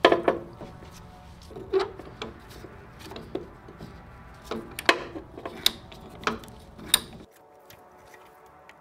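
Hand tools working on a stuck car door hinge: irregular metallic clicks and knocks, some sharp and loud, with a low background hum that stops about seven seconds in.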